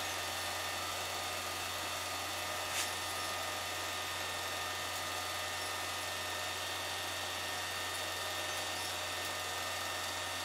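Film projector running: a steady motor hum and whir over hiss, with one short click about three seconds in.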